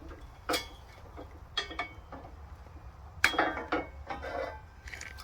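Steel sawmill parts clinking and clanking together as they are handled, about half a dozen sharp metal knocks with brief ringing, the loudest about three seconds in.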